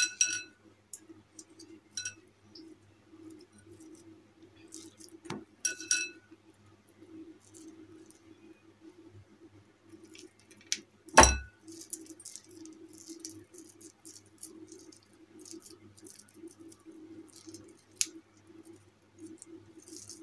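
Handling sounds of a plastic modak mould being filled over a glass mixing bowl: a few ringing clinks as the mould and hands knock the glass, small plastic clicks, and one heavier thump about eleven seconds in. A low steady hum runs underneath.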